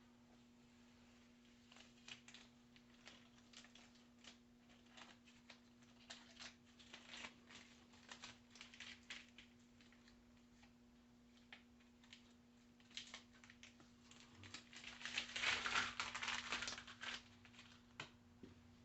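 Faint scattered clicks and rustling over a steady low hum, with a louder stretch of rustling about fifteen seconds in that lasts roughly two seconds.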